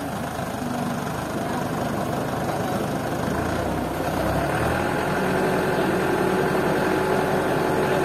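Truck engine running steadily to power its truck-mounted hydraulic crane as it lifts a bundle of logs. About five seconds in, the engine note steps up to a higher, steady whine while the crane works.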